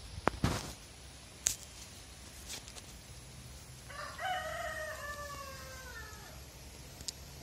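A few sharp clicks in the first second and a half, then a rooster crows once: one call of about two and a half seconds, falling in pitch at the end.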